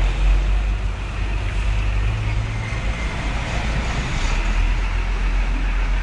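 Steady low rumble of road traffic and vehicle engines, with no siren sounding.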